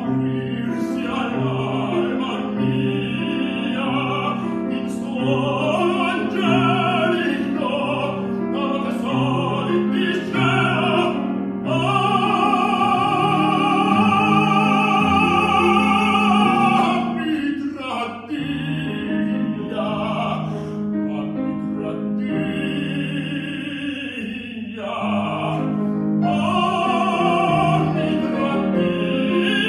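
Operatic tenor singing full-voiced with vibrato, accompanied on a grand piano. The piano repeats a steady low figure under the voice for the first half, and the tenor holds one long note in the middle.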